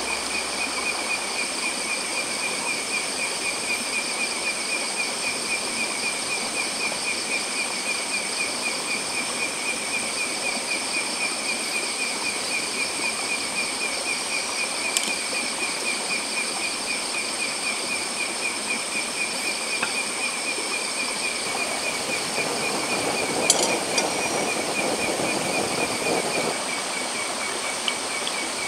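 Night insects trilling in a steady, pulsing chorus over the even rush of a flowing stream. A couple of light knocks come a little after three-quarters through.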